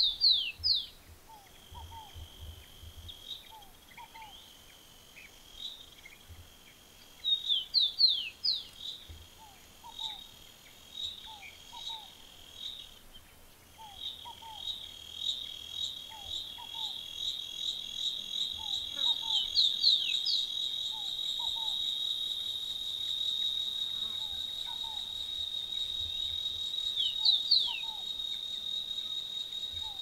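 Cicadas singing in a steady high buzz that breaks off briefly about halfway, then returns pulsing and swells into a louder continuous drone. Over it, loud bursts of quick falling whistled bird notes come at the start, about a quarter in, around two-thirds and near the end, with faint short low chirps repeating about once a second.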